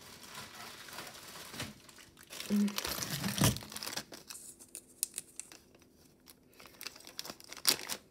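Small plastic zip-top baggie crinkling as it is handled and pulled open, with irregular rustles and clicks, loudest about three seconds in.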